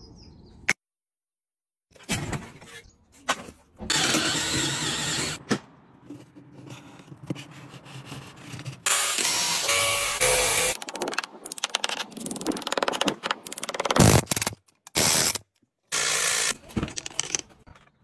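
A power drill boring into brick in several loud bursts of a second or two each, starting and stopping abruptly, with sharp knocks and scraping between them.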